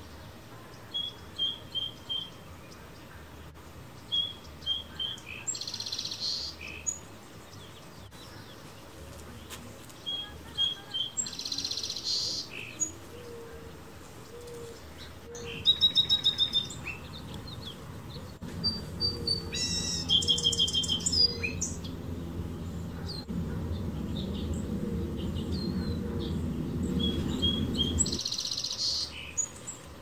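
Song sparrow singing its song three times: a few short clear notes, then a buzzy trill. Other birds chirp and sing in the middle. A low rumble runs through the second half and cuts off shortly before the end.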